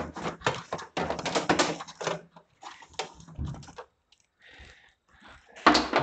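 Clicking, rattling and scraping of an old charging plug and its cable being worked out through a car's fuel-filler opening: rapid clicks for about two seconds, then a few sparser ones, and a single knock near the end.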